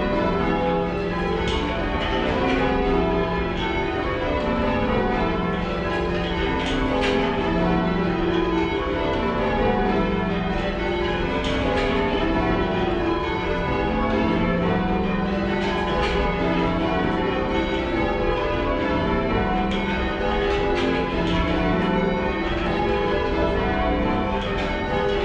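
A light ring of ten church bells in full change ringing, heard from inside the ringing room: a continuous, overlapping run of bell strokes that sounds rather quiet and slightly mushy.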